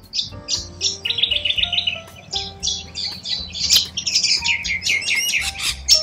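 Birds chirping and twittering in quick, overlapping calls, including one even run of about eight chirps a second or so in, over soft background music of held notes.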